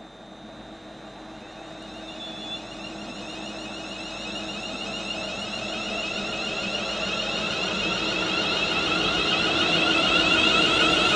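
Electric train approaching, its high whine and running noise growing steadily louder.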